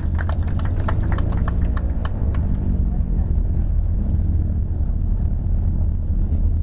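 Twin radial piston engines of a Douglas DC-3 running at low power while it taxis, heard inside the cabin as a steady low drone. A rapid rattle of clicks fades out about two seconds in.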